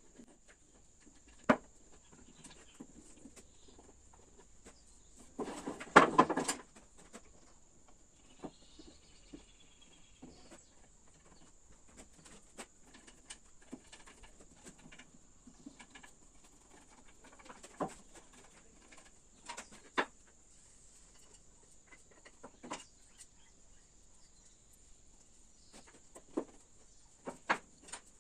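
Scattered knocks and clacks of wooden stool parts being picked up and set down on a wooden workbench during glue-up, with a louder burst of clatter about six seconds in.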